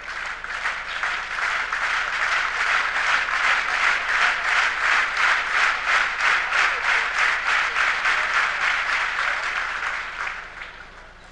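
Arena crowd clapping in unison, a fast steady rhythmic beat that swells in about half a second in and fades out near the end.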